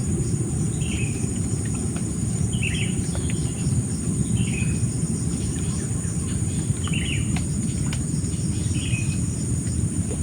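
Insects chirring in a steady high drone, with a bird giving a short call five times, about every two seconds. Under them runs a loud, uneven low rumble.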